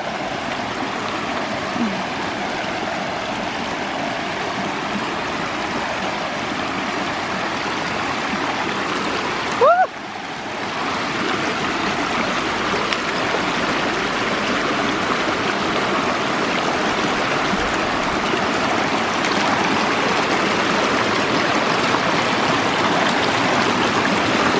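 River water rushing and trickling over stepping stones, a steady rush that grows somewhat louder in the second half. About ten seconds in, there is a short rising squeak.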